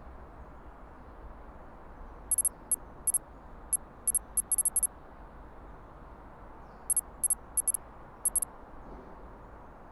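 Typing-style clicks, short, sharp and very high, in two quick runs: about ten from two seconds in, then about six from seven seconds in. A steady low hiss lies underneath.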